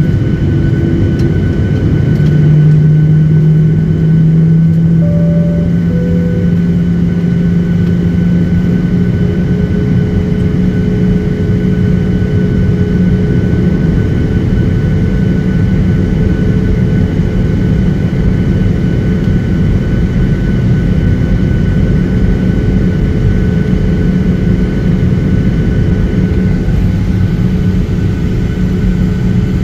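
Boeing 737-800's CFM56 jet engines and airflow heard from inside the passenger cabin: a steady loud rushing noise with a low drone and a fixed higher whine. The drone comes in about two seconds in and creeps slightly up in pitch.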